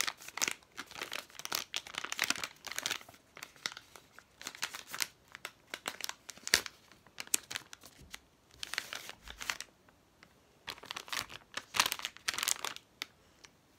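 Plastic packet of face wipes crinkling and rustling as it is handled, in irregular bursts with short quiet gaps.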